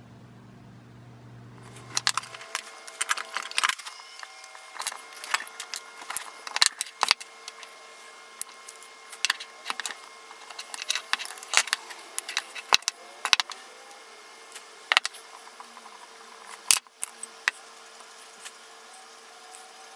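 Irregular metallic clicks, clinks and taps of a hand tool and loose metal parts against an antique Goodell-Pratt hand drill as it is taken apart. A low hum stops about two seconds in, and the clicking starts then.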